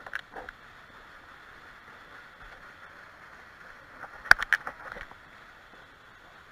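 Low steady hiss with a couple of sharp clicks at the start and a quick cluster of clicks and knocks about four seconds in.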